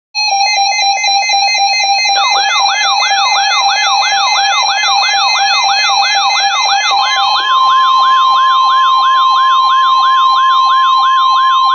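Electronic emergency-alert warning tones, the siren-like signal that leads into a broadcast weather warning. A steady buzzy tone is joined about two seconds in by a falling siren-like sweep repeating about twice a second. About seven seconds in, the buzzy tone gives way to a steady higher tone under the sweeps.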